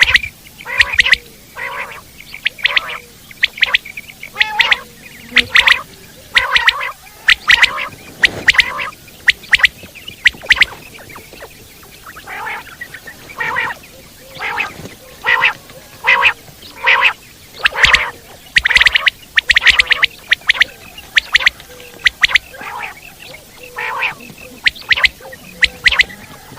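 Common quail (Coturnix coturnix) calling loudly and repeatedly: clusters of short, sharp notes, a new burst every second or so.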